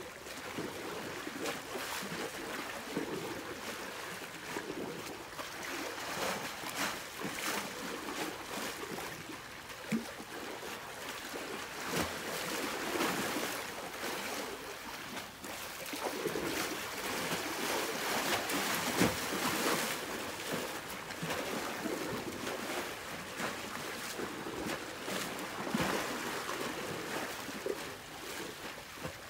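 Choppy harbour water lapping and splashing against the shore in irregular, uneven surges.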